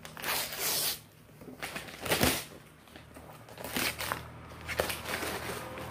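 Gift wrapping paper rustling and tearing in a few separate bursts as a present is unwrapped, with a couple of short sharp sounds later on.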